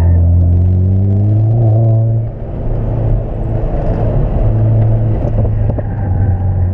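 Engine of a Chevrolet Cobalt SS turbocharged, a turbo 2.0-litre four-cylinder, heard from inside the cabin under hard driving on an autocross course. It revs up steadily for about two seconds, drops off sharply, then pulls again.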